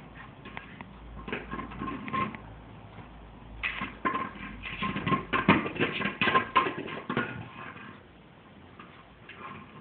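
Motorized running egg toy rattling and clattering on a hard floor, with a thin steady whine under the clatter, in two bursts: a short one about a second in and a longer, louder one from about three and a half seconds to about seven seconds in.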